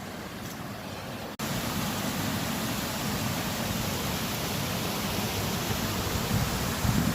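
Steady rush of a rocky woodland stream's flowing water, with an abrupt cut about a second and a half in, after which the rushing is louder.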